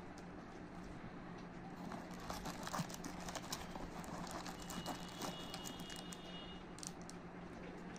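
Scattered light clicks and taps with wrapper crinkles as hands take foil-wrapped chocolate bars out of a cardboard box, over a faint steady hum.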